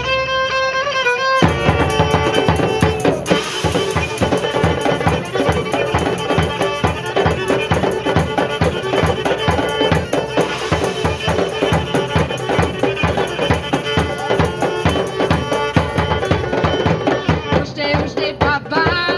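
Live folk band playing a fast traditional tune: a fiddle holds a note alone, then about a second and a half in drums come in with a steady, quick beat under the fiddle melody.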